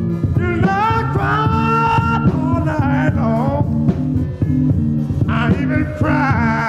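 Electric blues record playing in mono from vinyl: a band keeps a steady repeating rhythm while a bending, wavering lead melody line comes in about half a second in, fades around three and a half seconds, and returns past five seconds.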